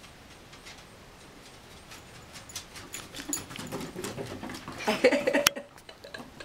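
A Scottish terrier and a Chihuahua puppy playing, vocalizing in a series of short, pitched yips. The yips start about two seconds in and are loudest around five seconds in, followed by a sharp click.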